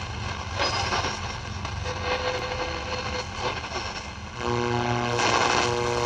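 Shortwave static and hiss from a Zenith Trans-Oceanic Royal 7000 tube portable radio as it is tuned across the band, with a brief faint whistle partway through. About four and a half seconds in, a steady buzzing tone comes in and holds.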